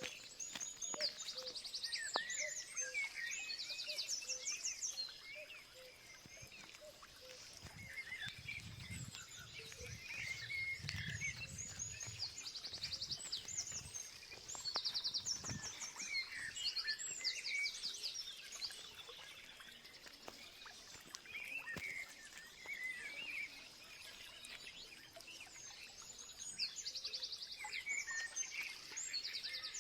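Wild birds singing and calling: a fast trilled phrase repeated every several seconds, mixed with scattered shorter chirps, over a faint steady high tone. A soft low rumble comes in partway through.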